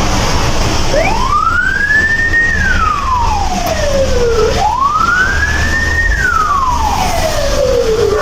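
Ambulance siren in wail mode. It starts about a second in and makes two slow cycles, each climbing for about a second and a half and then sliding back down for about two seconds, over a steady low vehicle rumble.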